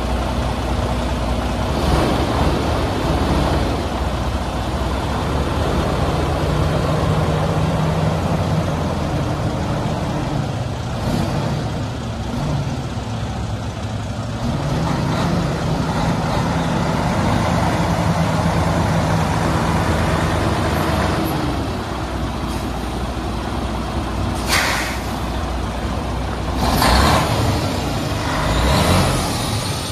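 Detroit Diesel engine of a 2014 Freightliner Cascadia road tractor idling steadily, with a few short sharp hisses of air, the loudest ones close together near the end.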